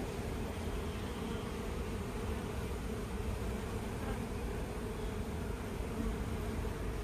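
Honeybees buzzing steadily in a dense mass on a comb frame lifted from an open hive.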